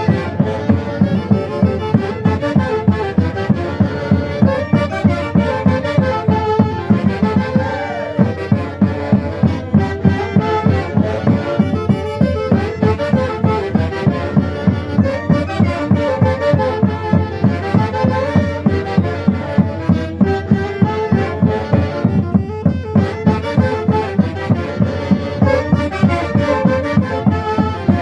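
Andean folk band playing a traditional festival tune: a melody on wind or reed instruments over a steady drum beat of about two strokes a second.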